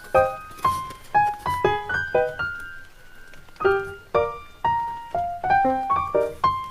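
Background music: a light piano-like keyboard melody played one note at a time, a few notes a second, with a brief pause midway.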